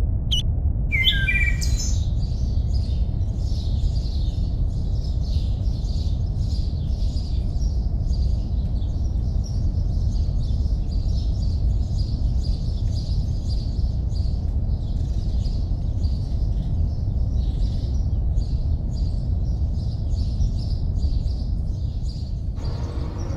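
A chorus of small birds chirping over a steady low rumble, with a few gliding calls about a second in. The chirping stops shortly before the end.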